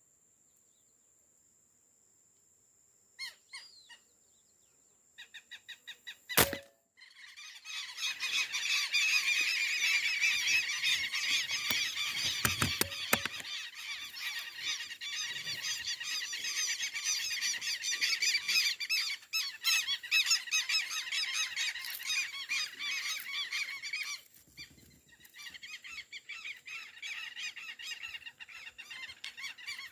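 A single sharp report from a PCP air rifle about six seconds in, then a large flock of ducks calling densely and continuously, with a brief lull near the end.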